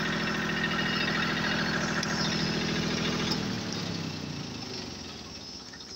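Small tractor's engine running steadily, then slowing down and getting quieter from about three and a half seconds in.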